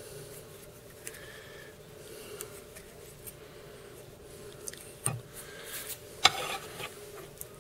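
Soft rubbing and handling noises of fly-tying thread and fingers working a hook in a vise, with two light clicks of tools being handled about five and six seconds in, over a faint steady hum.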